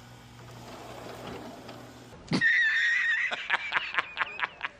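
A steady low hum of the running air-conditioning unit, cut off suddenly about two seconds in. Then a loud, high wavering squeal turns into a rapid, wheezy snickering laugh of about four pulses a second, an edited-in comedic laugh sound effect.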